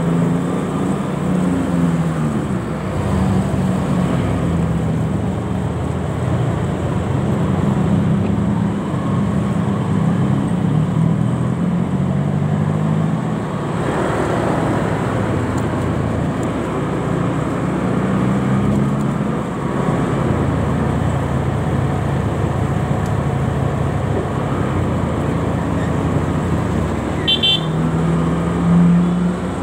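Motorcycle engine running while riding in slow, heavy traffic, its pitch rising and falling with the throttle, over steady road traffic noise. A short, high horn beep sounds near the end.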